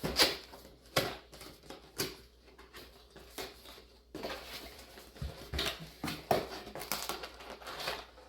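A CPU cooler's cardboard box and packaging being opened and handled: a series of knocks and clicks, about one a second, with rustling that grows busier about halfway through.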